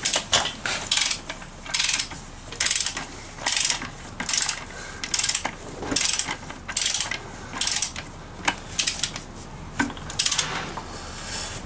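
Socket ratchet clicking in short bursts, about one every second, as its handle is swung back and forth to run down the flywheel centre bolt of a classic Mini engine.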